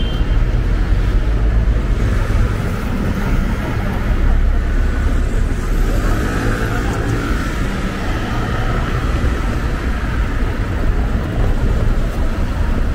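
Steady city street traffic: cars running past with a constant low rumble.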